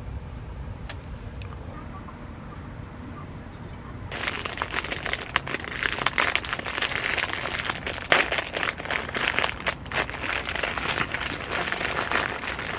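Plastic wrapper of a packaged honey hotteok crinkling and tearing as hands handle and rip it open: dense, loud crackling with sharp spikes that starts suddenly about four seconds in, after a quieter stretch of low hum and a few faint clicks.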